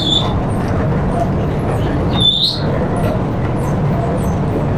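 Belt-driven grinding mill running with a loud, steady mechanical drone as flour pours from its spout. A short high squeak sounds near the start and again about halfway through.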